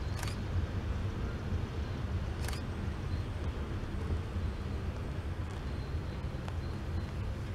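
Freight train rolling by, a steady low rumble. Two sharp clicks stand out, one right at the start and one about two and a half seconds in.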